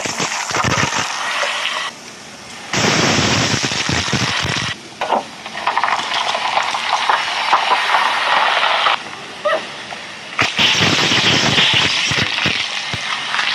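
A car tyre rolling slowly over objects on asphalt and crushing them, with crackling, crunching and squelching. It comes in several short clips that cut in and out abruptly. In the last clip a crushed fizzy drink sprays out as foam with a hiss.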